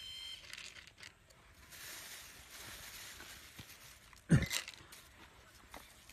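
Handling noise and rustling as bait is pressed by hand into the hopper of a plastic mini bait boat. About four seconds in there is one short, loud sound that falls in pitch. A high steady tone stops just after the start.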